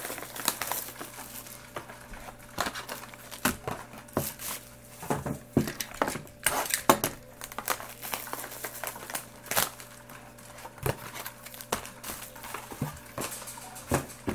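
Trading-card boxes being opened and the packs inside handled: irregular crinkling and rustling of pack wrappers, with occasional taps and scrapes of the boxes.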